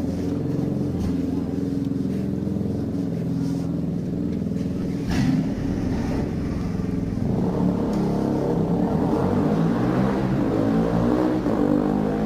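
Turbocharged car engine running and revving, with its turbo whistling.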